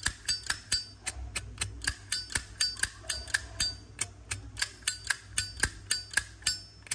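Silver-plated Zippo lighter's lid flipped open and snapped shut over and over, sharp metallic clicks about four or five a second. The firm, crisp hinge action is taken as a sign the lighter is sturdy.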